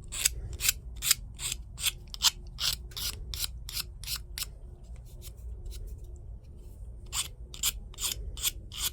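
A hand file rasping over 3D-printed plastic fins in quick, regular strokes, about two and a half a second, clearing print stringing. The strokes fade to light scrapes for a couple of seconds past the middle, then pick up again.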